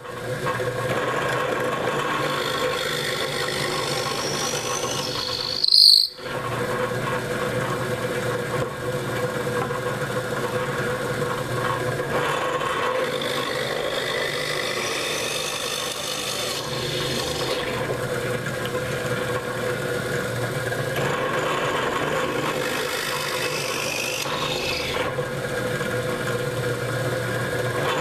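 Bench drill press running steadily, its bit boring bolt holes through a wooden 2x4 handle, with a short loud burst and a brief break about six seconds in.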